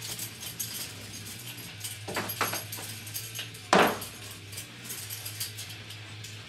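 Resistance band tubes, their clips and handles clicking and clinking as they are slid into a door anchor on a door, with a couple of knocks a little after two seconds in and a louder knock near four seconds in.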